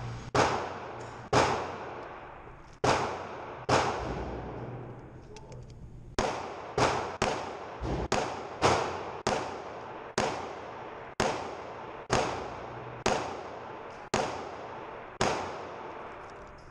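Glock 19 9mm pistol firing a long string of shots, a few spaced out at first, then a quicker run of about two shots a second, each shot followed by a short ringing decay.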